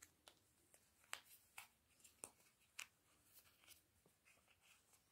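Near silence, broken by a few faint, irregular clicks and rustles of a crochet hook working chenille velvet yarn.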